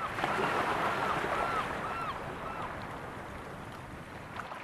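Sea ambience of waves and wind, a steady rush, with a series of short arched high calls repeating about twice a second over the first two and a half seconds; the whole fades down toward the end.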